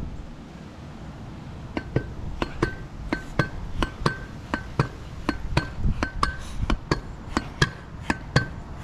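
Vurtego V3 pogo stick bouncing on pavement: a steady run of sharp clanks, a bit under three a second, each with a short metallic ring, starting about two seconds in after a stretch of wind noise.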